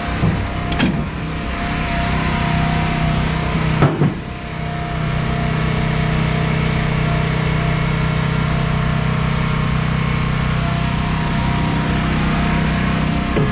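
An engine running steadily, with a couple of brief knocks, one just under a second in and one about four seconds in.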